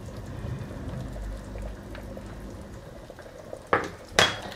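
A creamy mince-and-mushroom sauce bubbling in a frying pan. Near the end, two sharp clicks about half a second apart as a spoon and spatula knock against the pan.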